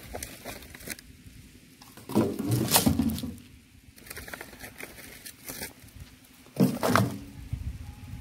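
Dry coconut husks and palm fronds rustling and knocking as they are handled in a wire-mesh cage, with two louder bursts of noise, about two seconds in and again near seven seconds.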